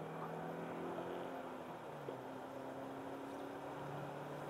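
Honda Accord Type-S wagon's engine running at a steady cruise, with a constant drone that shifts slightly in pitch, under tyre hiss from the wet road, heard from inside the cabin.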